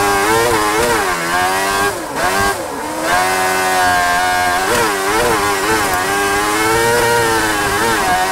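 Speedcar Xtreme race car's high-revving engine heard from the cockpit, running hard at around 11,000–12,000 rpm and shifting up through the gears. The pitch dips briefly at each shift or lift, then climbs again.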